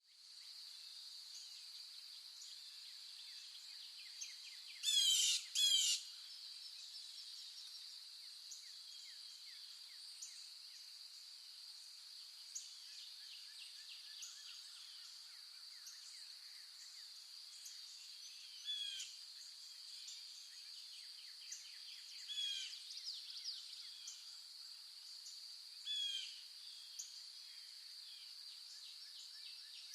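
Outdoor wildlife ambience: a steady high-pitched drone with scattered animal calls. Two loud harsh calls come about five seconds in, and short downward-sliding calls repeat a few times later on.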